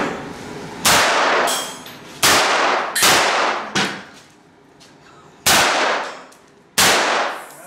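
Groza-041 traumatic pistol firing about five shots at uneven intervals, each sharp report followed by a ringing, echoing decay.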